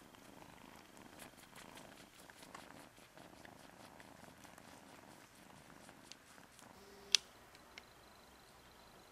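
Egyptian Mau cats purring softly while a mother nurses her six-week-old kittens, heard close up. A single sharp click about seven seconds in is the loudest sound.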